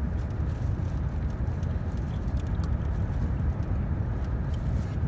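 A steady low rumble, with a few faint small clicks.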